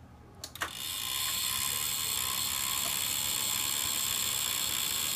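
Desktop PC switched on with a click about half a second in, its fans spinning up within a second to a loud, steady whir with a high hiss. Part of the noise is a fan catching a loose wire at the top of the case.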